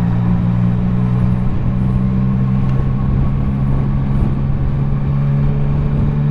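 Yamaha Tracer 900 GT's 847 cc inline three-cylinder engine running at a steady engine speed through its newly fitted Roads Italia Thunder Carbon aftermarket exhaust, the pitch rising slightly near the end.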